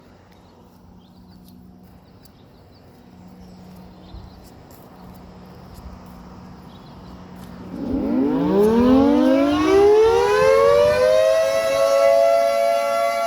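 Federal Sign & Signal 3T22 three-tone outdoor warning siren starting its test: about eight seconds in it winds up from a low growl, several tones rising together and levelling off after a few seconds into a loud, steady chord.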